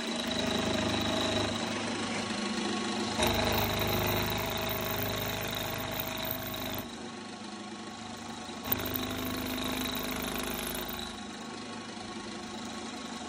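Milling machine running, its end mill cutting an angled slot into a metal air-rifle bolt housing: a steady motor hum with cutting noise. The sound shifts abruptly several times, with a sharp click about nine seconds in.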